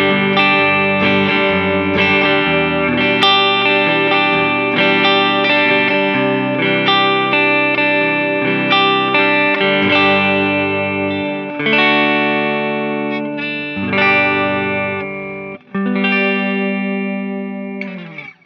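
Electric guitar played through light distortion, a busy run of notes and chords that ends on a held chord which cuts off suddenly.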